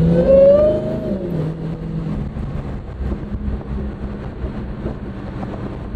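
Supercharged 6.2-litre HEMI V8 of a Dodge Challenger SRT Hellcat Super Stock, heard from inside the cabin while driving. The engine note rises and falls under acceleration near the start, then settles into a steady low drone with road noise.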